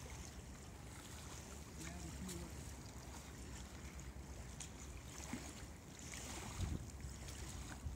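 Faint wind on the microphone and small waves lapping at the shore, with low gusts rumbling louder near the end.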